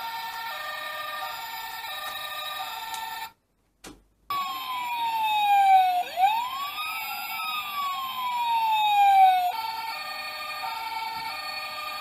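Toy fire engine's electronic two-tone siren alternating between a high and a low note, cut off about three seconds in. After a second's pause, a wailing siren with slow falling and rising sweeps plays for about five seconds, then the two-tone siren comes back.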